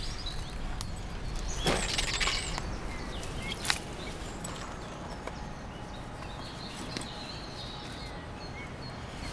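Small birds chirping in woodland, with a loud burst of rustling from fabric and undergrowth being handled about two seconds in, and a single sharp click a little later.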